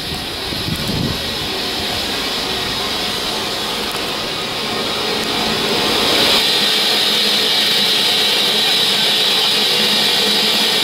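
Steady hiss of escaping steam from a standing BR Class 9F 2-10-0 steam locomotive.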